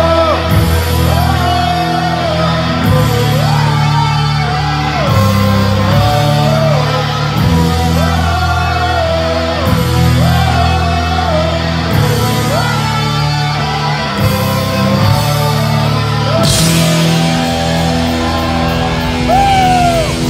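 Heavy metal band playing live: electric guitar holds a slow, sliding melody over sustained low chords, and a cymbal crash comes in about sixteen seconds in, with the cymbals ringing on after it.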